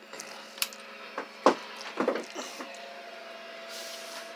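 Relay in a 1x2 CB linear amplifier clicking several times as the radio keys it in and out, showing that it is keying up every time. A steady tone comes in a little past halfway.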